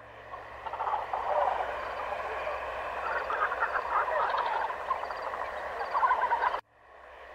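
A chorus of frogs croaking, many calls overlapping. It breaks off abruptly near the end.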